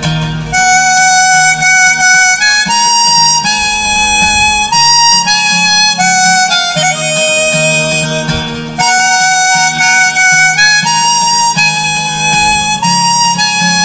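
Harmonica played in a neck holder over a strummed acoustic guitar: an instrumental melody of long held notes, with a short gap about nine seconds in.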